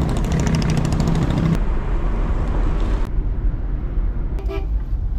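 Small car's 796 cc engine running with road rumble, and a vehicle horn sounding steadily for about the first second and a half before cutting off. A short pitched toot comes near the end.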